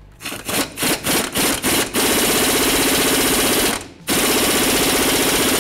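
Impact wrench hammering on the lower rear-shock nut. A few short trigger blips come first, then two long runs of rapid hammering with a short break about four seconds in. The nut is not yet breaking loose.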